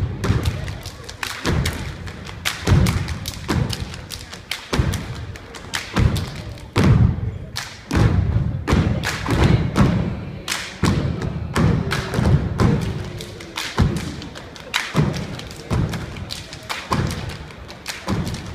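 A dance team's performance: loud, irregular thumps with sharp smacks several times a second, and music faintly underneath.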